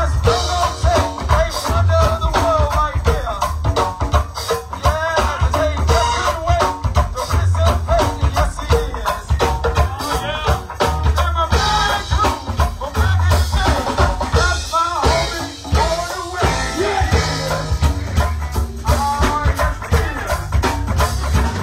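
Live go-go band playing: congas and drum kit keep a steady beat over a deep bass line, with vocals on top.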